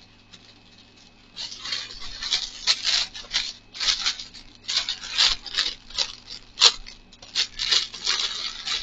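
Rustling and crinkling of plastic packaging and clothing being handled, in short irregular bursts that begin about a second and a half in.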